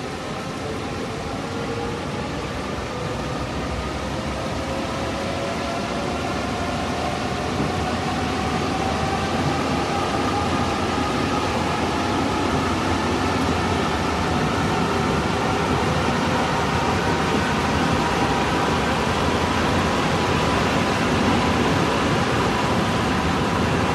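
Subway train pulling away and picking up speed: the traction motors' whine rises steadily in pitch over a continuous running rumble and hiss that grows gradually louder.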